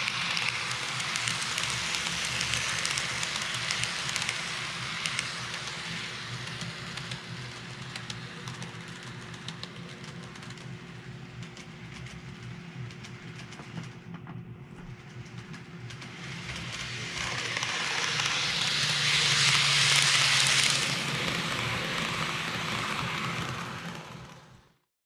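Greenmax N-gauge Kintetsu 3220 series model train, powered, running on layout track: a steady rolling noise with fine quick clicks from the wheels on the rails. It eases off in the middle, rises to its loudest again as the train comes close once more, then fades out.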